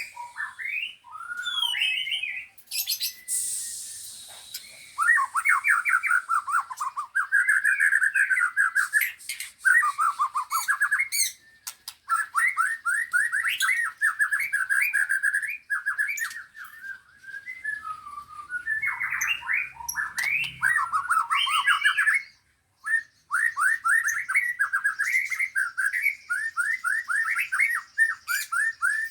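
Songbirds singing in fast trilled phrases of a few seconds each, with short breaks between phrases and fainter high-pitched chatter above them.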